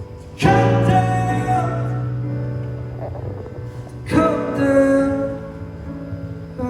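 Live music: two loud chords struck about four seconds apart, each left to ring out and fade.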